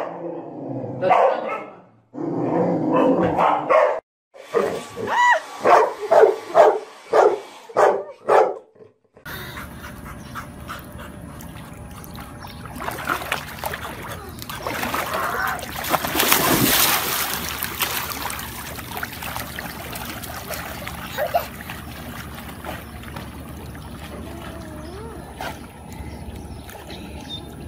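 A dog barking in a quick run of about eight barks. After a cut about a third of the way in, water splashes in a swimming pool over a steady hiss.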